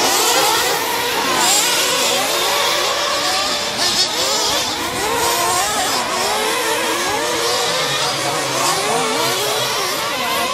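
Several radio-controlled off-road racing trucks' motors running together, their pitches overlapping and constantly rising and falling as the trucks accelerate and brake around the track. A short sharp knock about four seconds in.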